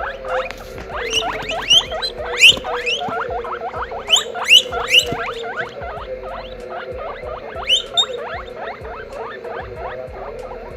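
Guinea pig wheeking: a rapid, continuous run of short rising squeals, several a second, with a few louder ones between two and five seconds in and again near eight seconds. It is the call guinea pigs make when they are hungry and asking for food.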